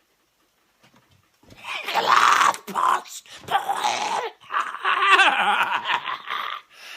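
Loud human screaming that starts about a second and a half in and goes on in several long, wavering cries.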